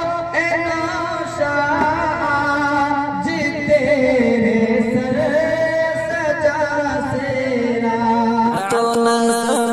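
A man singing a sehra, an Urdu wedding poem, into a handheld microphone, in long drawn-out melodic phrases.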